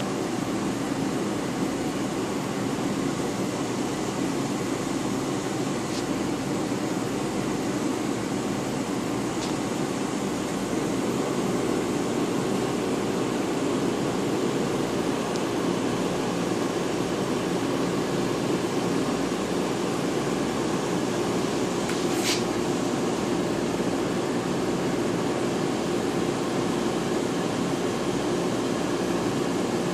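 Steady low hum and rushing hiss of a reef aquarium's running pumps and water flow, with one sharp click about two-thirds of the way through.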